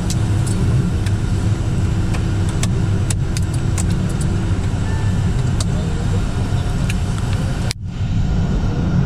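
Aircraft engine and airframe rumble heard inside the cockpit as the plane rolls slowly along the runway after landing, with scattered light clicks. The sound drops out for a moment near the end.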